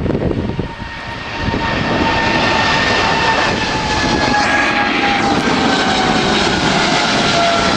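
Twin jet engines of a Boeing 777-300 at takeoff thrust as it climbs out overhead. A loud, steady rushing noise grows louder about a second and a half in, and a whining fan tone slowly falls in pitch as the aircraft passes.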